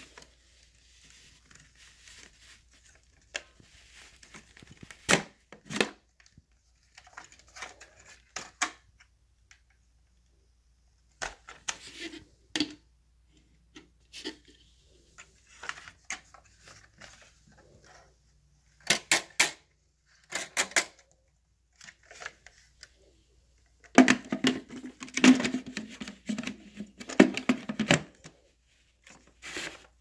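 Upright vacuum being handled: scattered sharp clicks and knocks with light rustling between them, and a denser stretch of rattling knocks near the end. The vacuum's motor is not running.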